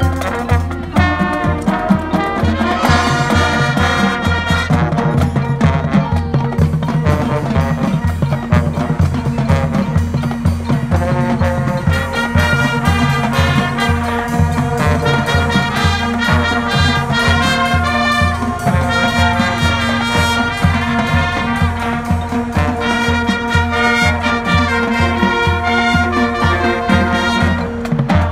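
High school marching band playing its show music: brass (trumpets and trombones) over a steady drum beat of about two strokes a second.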